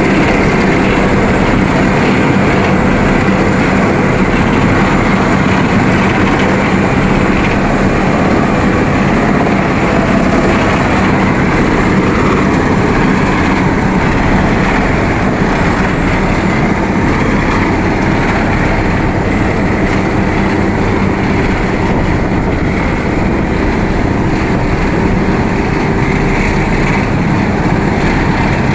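Asphalt paver running steadily, a loud continuous machine drone with a steady low hum throughout.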